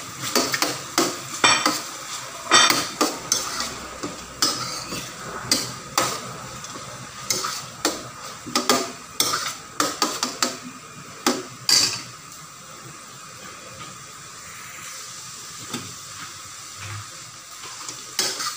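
Metal spoon scraping and clinking against a stainless steel pan in quick repeated strokes, stirring diced carrots and ham frying in oil and butter, over a steady sizzle. The stirring stops about two-thirds of the way through, leaving the sizzle alone, and starts again right at the end.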